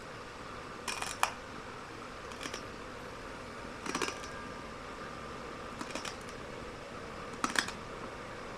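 Light-bulb glass being chewed in a mouth: scattered sharp crunches, about one every second or two, over a faint steady hum.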